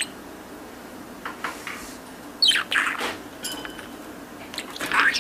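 Talking budgerigar chattering: two quick runs of high warbles, chirps and clicks, the louder about halfway through and another near the end.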